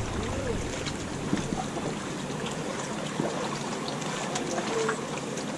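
Steady water noise, with faint distant voices now and then.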